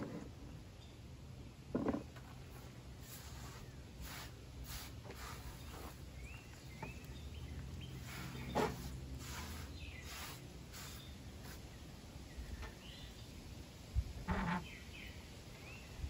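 Outdoor ambience with a steady low rumble and birds chirping now and then, broken by a few knocks and clatters as a small perforated metal fire can is handled.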